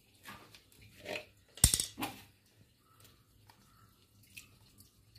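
Aquarium water splashing and sloshing as a plastic jug is dipped into a fish tank to scoop water out. There are several separate splashes, the loudest and sharpest about a second and a half in, then a faint one near the end.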